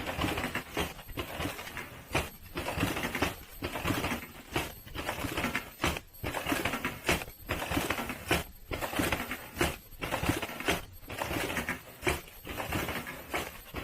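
Automatic dental mask production machine running: a continuous mechanical clatter of small clicks and knocks, cycling with short breaks about once a second.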